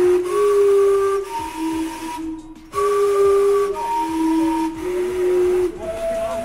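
Gastown steam clock's steam whistles sounding its chime melody, held notes about a second each that step between pitches and sometimes overlap, over a hiss of escaping steam.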